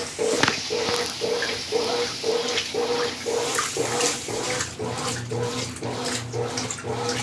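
Consul Facilite CWC10 top-loading washing machine in its wash stage, the motor pulsing the agitator back and forth about twice a second with water and clothes sloshing in the tub.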